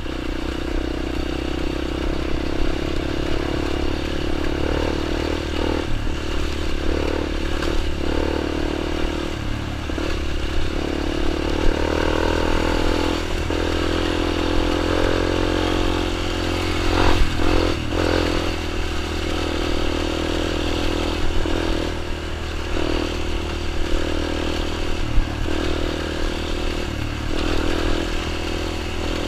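Small dirt bike engine running steadily, its pitch rising and falling a little in the middle.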